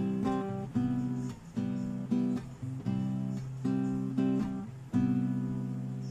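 Background music of an acoustic guitar strumming chords, one strum about every two thirds of a second. The last chord, about five seconds in, is left to ring and fade.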